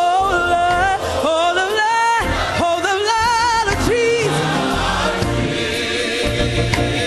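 Gospel choir performance: a solo singer's melismatic line with wide vibrato and bending pitch over a band, giving way about four seconds in to a fuller, held chord with the choir and a steady bass.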